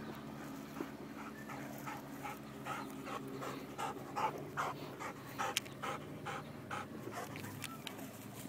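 Black Labrador Retriever panting quickly and rhythmically, about four breaths a second, out of breath after running up a hillside through tall grass.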